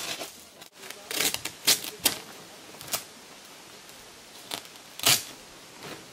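Plastic house wrap being torn and handled over a window opening: a series of short, sharp rips and rustles, about half a dozen, loudest around two seconds and five seconds in.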